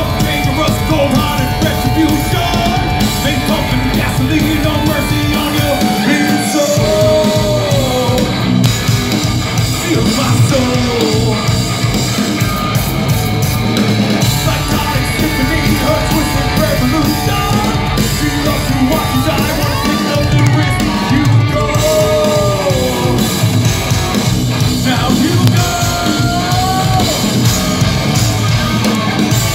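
Progressive metal band playing live at full volume: a male lead vocal sings over distorted double-neck electric guitar, bass and a busy rock drum kit.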